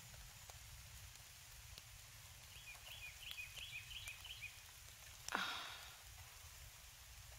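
Quiet outdoor ambience in light rain: a bird gives a quick run of about eight short high chirps, and a little later a brief sound slides steeply down in pitch.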